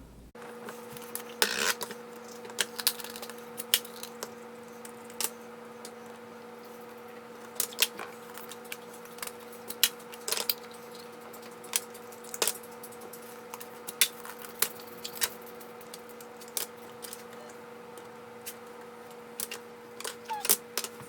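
Small hard items, likely plastic baby bottle parts, clicking and clattering as they are handled and set down, in irregular knocks over a steady electrical hum.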